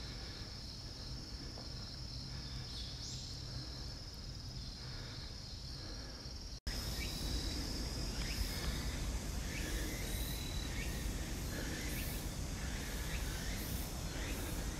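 Insects droning steadily in woodland, with a brief rising note about three seconds in. About six and a half seconds in, the sound cuts abruptly to a different insect chorus: a high buzz pulsing about one and a half times a second, with short high chirps.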